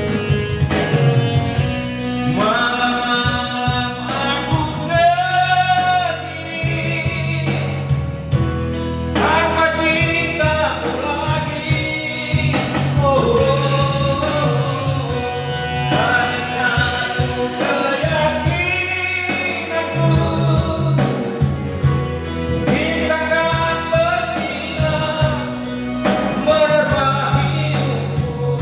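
A song: singing over band accompaniment with a strong, steady bass line.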